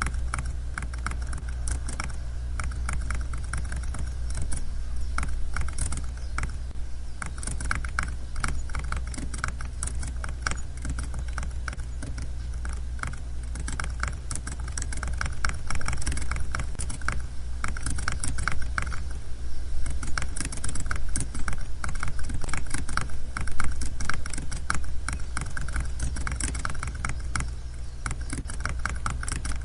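Computer keyboard typing: quick, irregular key clicks over a steady low hum, the clicks growing a little louder and denser about halfway through.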